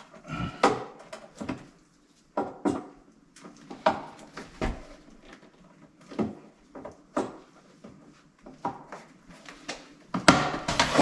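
Irregular knocks and clunks from hand work on the panel and floor, then a louder scraping rush about ten seconds in.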